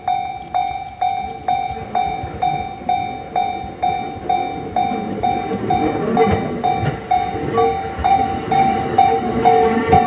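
Japanese level-crossing warning bell ringing steadily, about two strokes a second. From about six seconds in a train's rumble and low wheel thumps grow louder beneath it, with a second, lower tone coming in.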